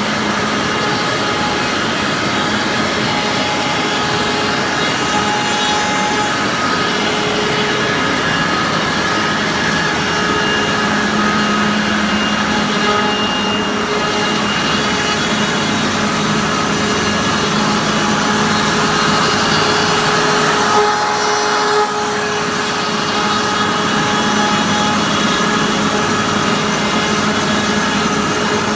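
2008 Procam E Series flatbed CNC router running steadily, its spindle cutting sheet material over the constant noise of the vacuum hold-down pumps and dust extraction. Several steady whining tones sit above the noise.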